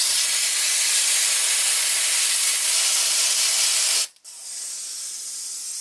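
CO2 gas hissing out of an airsoft pistol magazine around its cartridge: a loud steady hiss that cuts off sharply about four seconds in, then goes on more quietly. A leak like this is a fault, not normal behaviour.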